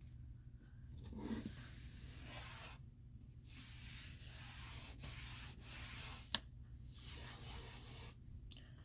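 Faint rubbing of fingertips on skin, in several short stretches with brief pauses between them, from working powder eyeshadow swatches. A single sharp click about six seconds in.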